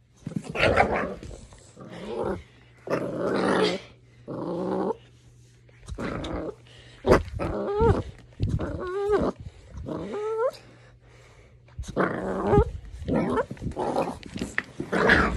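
Puppy growling in play in short bursts, with several short whining calls that rise and fall in pitch in the middle.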